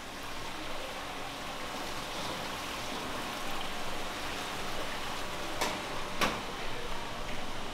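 Steady hiss of a wok of spicy fish soup boiling hard over a gas burner, with two sharp metal clinks near the end from the steel ladle and serving pot.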